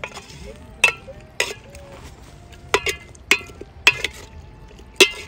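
A metal spoon stirring in a metal cooking pot and knocking against its side: about seven sharp, irregularly spaced clinks, each with a brief ring.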